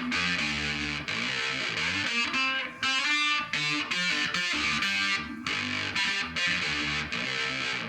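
Electric guitar played through an Analog Man Sun Face fuzz and a Mu-Tron phaser: a distorted riff of changing notes, with a sweeping phaser whoosh in the treble.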